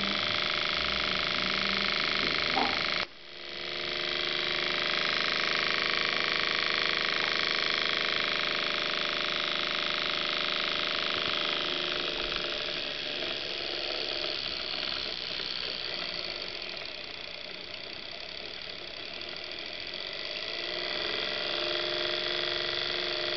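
Small homemade low-voltage motor-generator running with a steady electrical whine and buzz. It cuts out suddenly about three seconds in and comes back within a second, then runs somewhat quieter through the middle.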